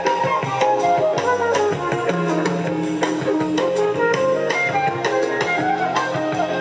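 Recorded music with drums and a moving melody, played through a 1929 Victor (RCA) tube amplifier with type 245 triode output tubes and a Victor BA-40 loudspeaker.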